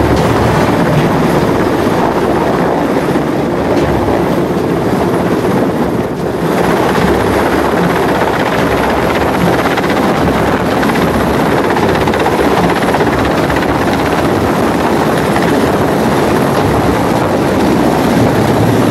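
Mi-17 helicopter flying low overhead and hovering: the beat of its five-blade main rotor and its twin turboshaft engines, loud and steady, with a brief dip about six seconds in.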